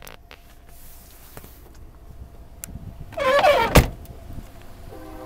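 A 2001 Chevrolet Tahoe's rear side door is swung shut: a short creak, then a single solid slam about four seconds in.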